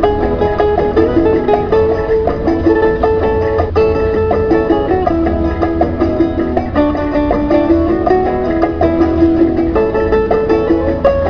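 Instrumental background music, a quick melody of plucked-string notes over a steady low bass.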